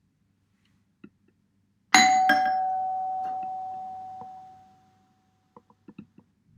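Doorbell chime ringing a two-note ding-dong about two seconds in: a higher note struck, then a lower one a moment later, both ringing on and slowly dying away over about three seconds.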